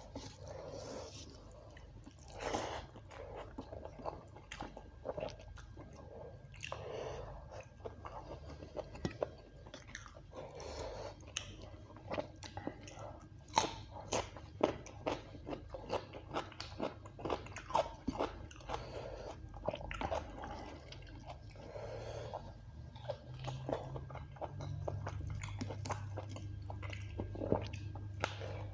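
A person eating curry and rice: steady chewing with many short, sharp crunchy bites.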